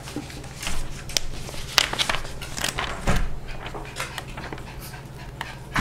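Paper rustling as a folded instruction manual is opened out and handled, with scattered short clicks and light knocks, over a steady low hum.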